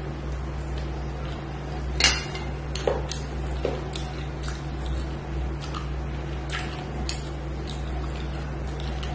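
Eating by hand from a stainless steel plate: fingers scoop and press rice and curry against the metal, making scattered clinks and scrapes, the sharpest about two seconds in. Wet mouth sounds of eating come with them over a steady low hum.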